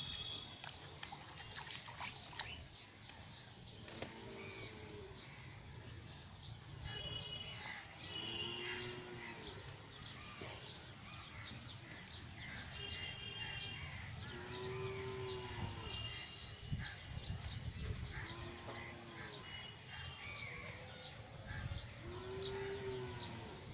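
Birds calling, with a short arching call repeated every few seconds and brief high chirps between.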